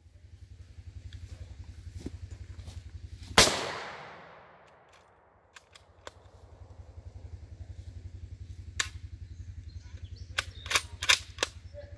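.308 rifle fired once: a loud sharp crack that echoes and dies away over about a second and a half. Several shorter, quieter sharp clicks and cracks follow over the next few seconds, with a steady low hum underneath.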